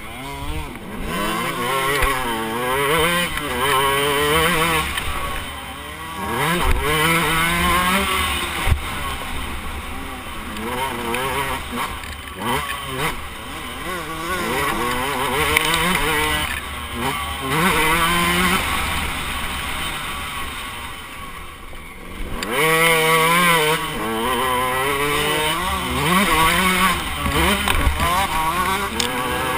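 KTM 125 two-stroke dirt bike engine revving hard, its pitch climbing and dropping over and over as the rider works through the gears, with brief throttle lifts about six and twenty-two seconds in. A low wind rumble on the microphone runs underneath.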